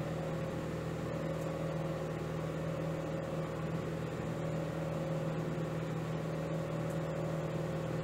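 Samsung ME88SUW microwave oven running in defrost mode, a steady hum.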